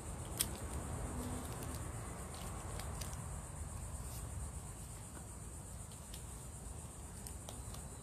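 Steady high-pitched chirring of insects with a low rumble beneath, and a few small clicks of a bottle cap and tape being pressed onto a cardboard tube, the sharpest about half a second in.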